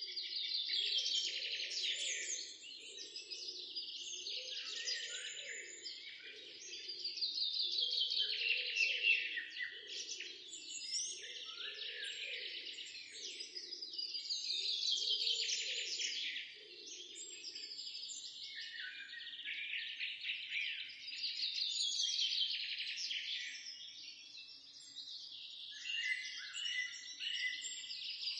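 Dense birdsong: many birds chirping and trilling together, swelling louder and easing off about every seven seconds.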